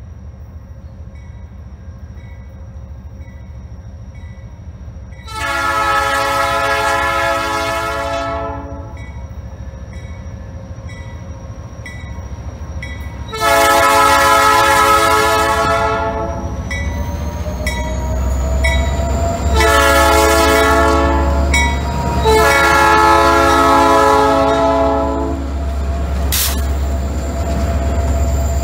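Diesel locomotive horn on an SD45 sounding the grade-crossing signal: two long blasts, a shorter one, then a final long blast, each a chord of several notes. Under the horn, the locomotive's engine rumble grows louder as it nears the crossing and starts rolling past near the end.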